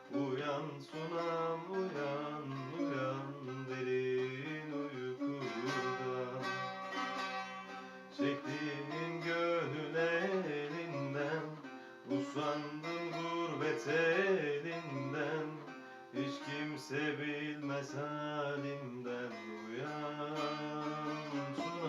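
Instrumental passage of a Turkish folk song, a plucked string instrument playing the melody with accompaniment.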